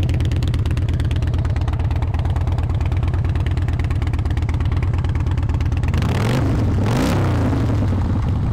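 Harley-Davidson Softail Deuce's fuel-injected Twin Cam 88B V-twin idling through chrome dual exhaust pipes. About six seconds in the throttle is blipped once: the engine revs up briefly and drops back to idle.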